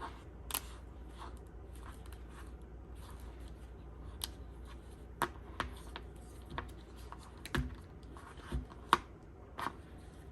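Scattered small plastic clicks and light scratching as a replacement ear pad is pressed and worked onto a Beats headphone earcup, coming at irregular intervals with one sharper click a little before the end.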